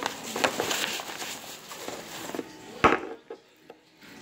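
Handling noises from a manual blood pressure monitor kit, with its rubber bulb, tubing and gauge being gathered up: rustling and light clicks, then one sharp knock just under three seconds in.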